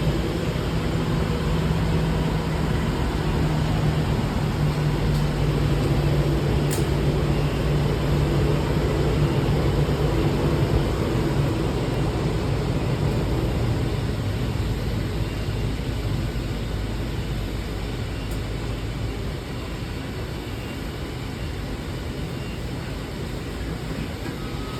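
Steady hum of jet aircraft and airport ground equipment during boarding, with a low droning tone that fades away about halfway through as the overall noise slowly gets quieter.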